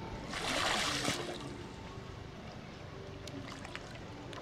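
Pond water splashing once, a loud burst just under a second long about half a second in, as someone moves through the water; then lighter water noise.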